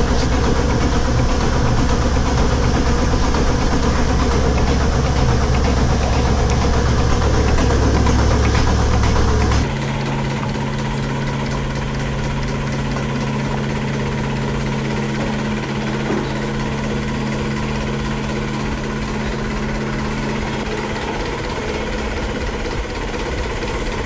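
Milking parlor machinery, the vacuum pump and milking equipment, running with a steady low mechanical hum. About ten seconds in the hum changes abruptly to a higher drone with more hiss, then runs on steadily.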